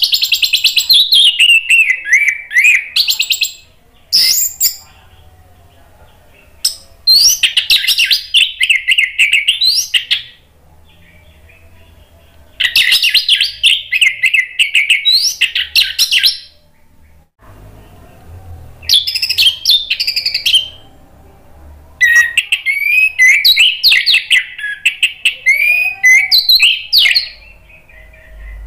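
Orange-headed thrush singing loudly in bursts of quick, varied whistled notes. There are about six phrases, each one to five seconds long, with short pauses between them.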